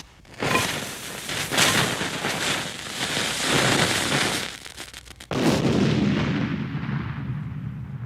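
Battle sound effect of gunfire and blasts. A quick rattle of shots comes about five seconds in, then a sudden loud blast whose low rumble slowly fades away.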